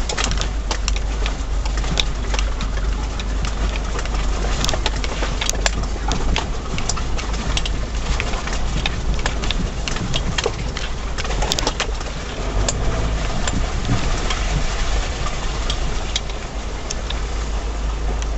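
In-cab sound of a Mitsubishi Shogun crawling along a rough, rutted track: a steady low rumble of engine and tyres, with frequent clicks, knocks and rattles as the vehicle jolts over the ruts.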